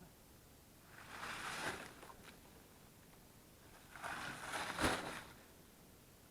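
Two short bursts of rustling, crunching noise, the second ending in a sharp click.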